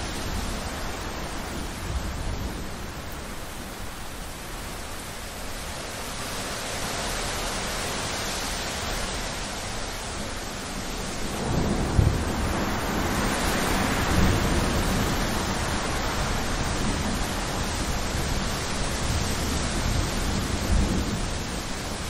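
Heavy rain pouring steadily, with a low rumble of thunder that swells up about halfway through, a sharp clap as it begins.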